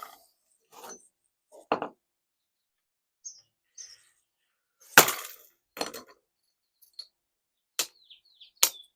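Hammer striking a block of ice to break it open: several sharp, irregularly spaced blows with clinking ice, the loudest about halfway through. Birds chirp faintly between the blows.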